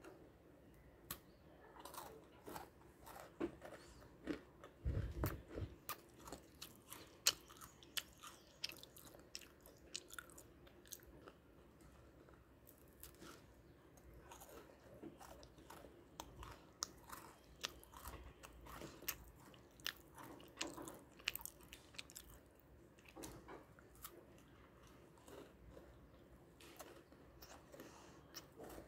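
A person chewing crunchy gingerbread cookies, with many small, sharp crunches coming in clusters.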